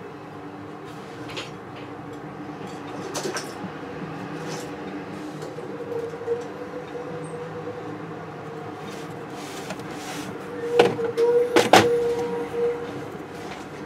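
A few sharp metallic clicks and knocks, loudest in a cluster near the end, as a gold ring and small steel tools are handled against a metal ring-holding fixture, over a steady low hum.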